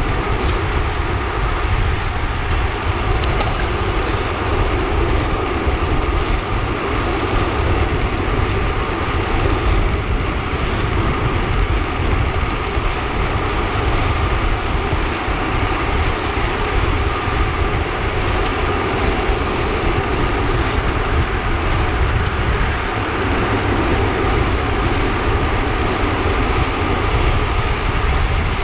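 Steady wind noise rushing over the microphone of a handlebar-mounted camera on a road bike riding at speed, with a heavy low rumble.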